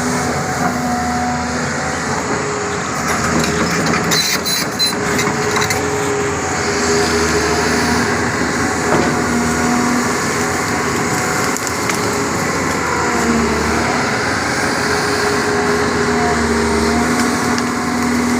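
Doosan 225 hydraulic excavator's diesel engine running steadily under working load, its pitch stepping up and down as the hydraulics are worked.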